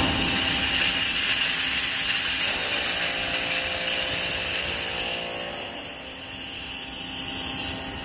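Thermostatic air vent on a low-pressure steam heater hissing hard as it blows air and steam out of the heater. The hiss weakens over the last few seconds and stops near the end as steam temperature reaches the vent and it closes.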